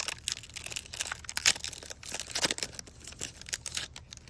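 Foil trading-card pack wrapper being torn open and crinkled by hand, an irregular run of crackles and rips that stops just before the end.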